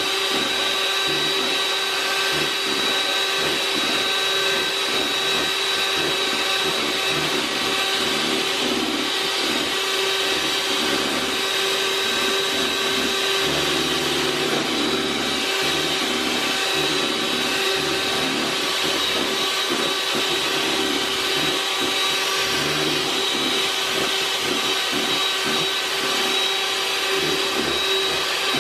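Hamilton Beach electric hand mixer running steadily at one speed, its beaters whipping instant coffee, sugar and hot water into a thick foam in a plastic bowl: a constant motor whine over a whirring hiss.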